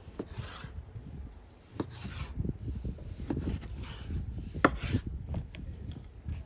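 Knife cutting lamb on a wooden board: irregular soft knocks and scraping, with one sharper knock about two-thirds of the way through.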